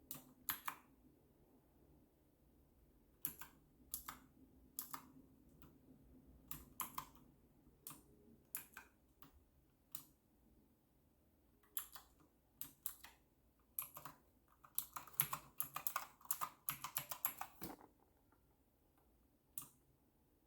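Clicky switches of an RK Royal Kludge typewriter-style mechanical keyboard being pressed: scattered single keystrokes and short pairs, then a quick run of fast typing for about three seconds near the end, and one last keystroke.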